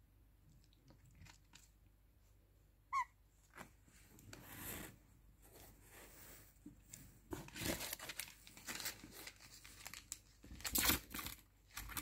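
Faint crinkling and rustling of paper towels as a pet bird moves about on them, with one short high chirp about three seconds in. The rustling grows busier and louder in the second half.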